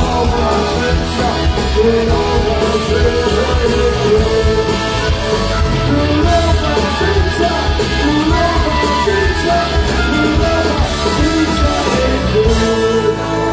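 Live rock band playing loud: drums with crashing cymbals, bass and electric guitars, with singing over it. About twelve and a half seconds in, the drums and bass drop out, leaving the guitars.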